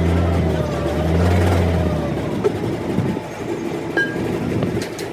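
A heavy engine running with a low, steady hum that drops away about two seconds in, followed by a few sharp metallic clicks and knocks.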